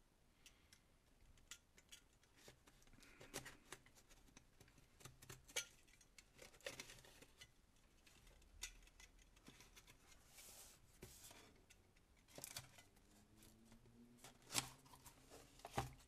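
Faint scattered clicks and scrapes of a snap-off utility knife cutting the packing tape on a cardboard box while the box is turned and handled, ending with the cardboard flaps being pulled open.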